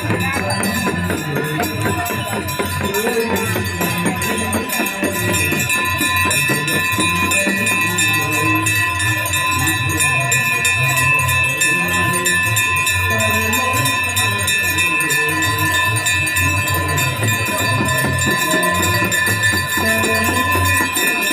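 Brass aarti hand bells ringing rapidly and without a break, their held tones sounding over devotional music.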